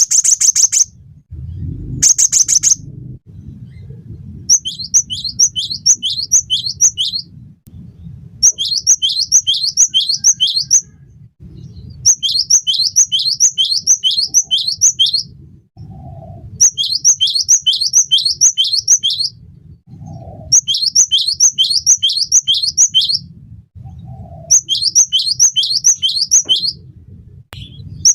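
Cinereous tit (gelatik batu) singing in repeated bouts of quick, high notes, each falling in pitch, about three seconds of song then a short pause, over a low background rumble.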